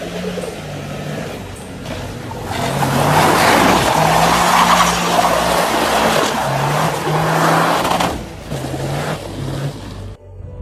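Toyota GR Yaris drifting on paving: tyres skidding and squealing with the engine running, loudest for several seconds in the middle, then cutting off abruptly just before the end. Music plays underneath.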